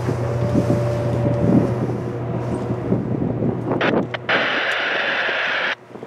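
Wind buffeting the microphone over a steady low rumble, with a loud hiss that comes in about four seconds in and cuts off suddenly near the end.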